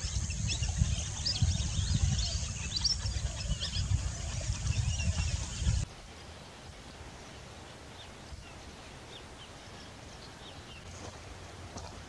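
Many short, high bird calls over a low rumble and a steady high hiss. All of it cuts off suddenly about six seconds in, leaving a much quieter background with a few faint bird calls.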